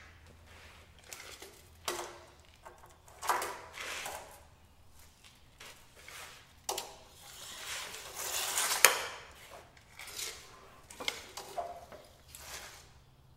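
Workshop handling sounds: scattered knocks, clicks and scrapes around a stack of wooden slabs. A steel tape measure is drawn out with a rising rasp that ends in a sharp click about nine seconds in, the loudest sound here.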